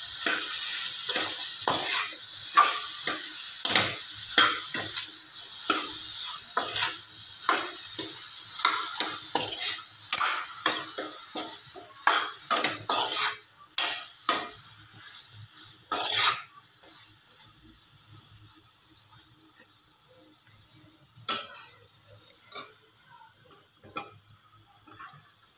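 Brinjal, green chilli and tomato pieces sizzling in oil in a pan while being stirred with a spatula, with rapid repeated scrapes and knocks of the spatula against the pan. The stirring stops about two-thirds of the way through, leaving a quieter sizzle with only a few knocks.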